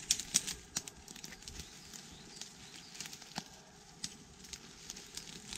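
Dry twigs and woodland debris crackling and snapping, a scatter of sharp irregular cracks, loudest and most frequent in the first half second, with another sharp snap a little past the middle.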